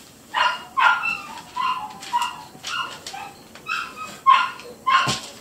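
A dog barking repeatedly: about ten short, sharp barks, roughly two a second.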